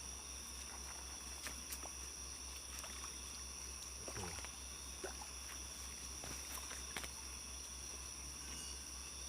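Night insects keeping up a steady high-pitched chorus, with a few faint clicks and one short falling sound about four seconds in.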